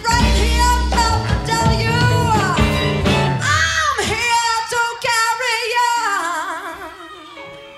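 Live rock band with a woman singing lead, belting over bass, drums and guitar. About four seconds in the bass and drums drop out, and her voice goes on alone with a wide vibrato over a held note, getting quieter toward the end.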